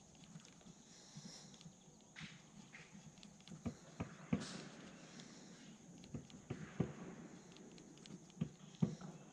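Faint, scattered knocks and taps at uneven intervals from handling fishing gear in a kayak while a lure is worked, over a faint steady hiss. The loudest knocks come a few seconds in and again near the end.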